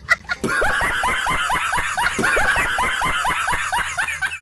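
A person snickering: a rapid run of short laughs, about four a second, that starts and stops abruptly.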